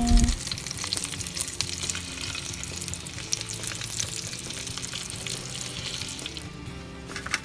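Milkfish (bangus) belly and shrimp frying in hot oil in a pan, a steady sizzle with fine crackling.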